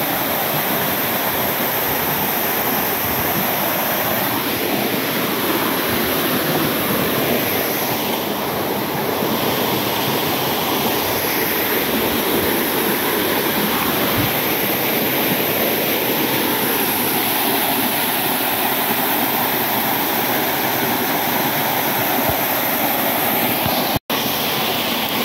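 Small forest waterfall and its stream: a steady rush of falling water splashing into a rocky pool. The sound cuts out for a moment near the end.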